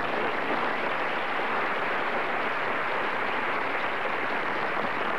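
Studio audience applauding, a steady even clapping that starts suddenly and holds at the same level.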